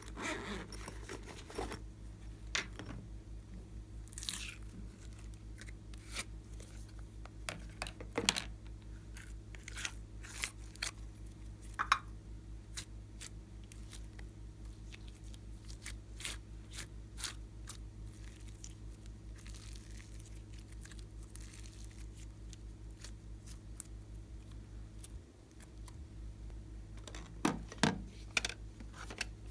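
Clear slime being squished and stretched by hand, giving scattered sticky clicks, pops and crackles, with a faint steady low hum underneath.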